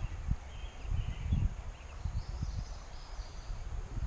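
Low, irregular rumbling and thumps on the microphone, with a few short, high bird chirps.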